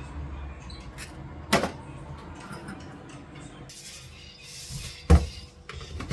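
Two sharp knocks, like a kitchen door or cupboard bumping shut, the louder one about five seconds in, preceded by a brief rustling hiss.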